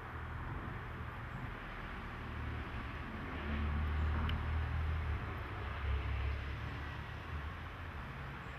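Outdoor background noise: a steady hiss with a low rumble that swells about three seconds in and eases after about six seconds.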